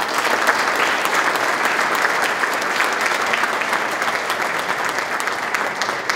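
Audience applauding: a dense, sustained round of clapping from a large crowd, thinning slightly near the end.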